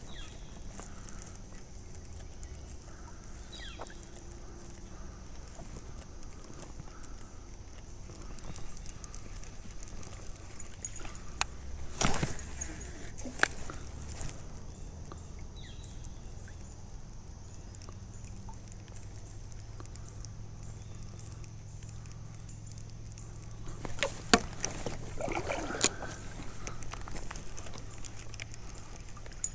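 Steady rush of a flowing stream around a kayak, with a few scattered sharp knocks and clicks, the loudest about twelve seconds in and a cluster near the end.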